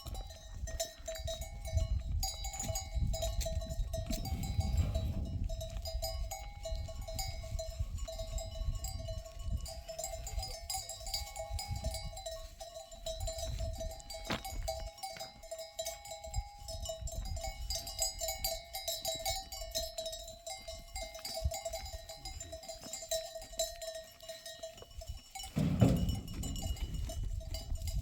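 Livestock bells on a grazing flock ringing and clinking steadily, over a low rumble. A short, louder noise comes near the end.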